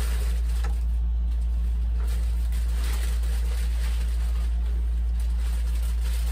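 A steady low hum, with faint rustling and handling noises from a foam model-plane wing being lifted out of its plastic wrapping.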